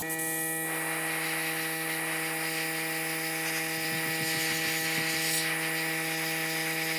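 Master Airbrush G22 gravity-feed airbrush spraying paint with a hiss, over the even hum of a small air compressor.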